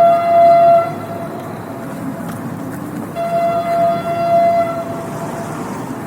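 Train horn sounding one steady note in two blasts, the first ending just under a second in and the second starting about three seconds in and lasting under two seconds, over the train's steady running noise.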